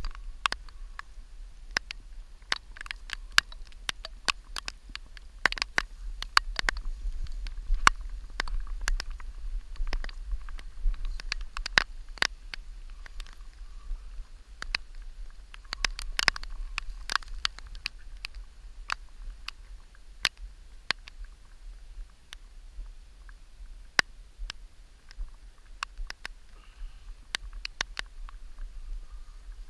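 Irregular sharp clicks, taps and rustles over a low rumble: handling noise on a body-worn action camera as the net is lifted and carried. The clicks come thickest in a few stretches and thin out near the end.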